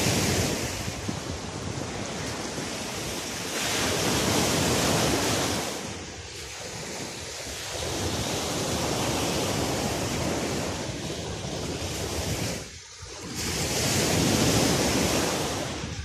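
Small sea waves breaking and washing up a sandy beach, with wind buffeting the microphone; the rushing sound swells and eases, loudest about four seconds in and again near the end.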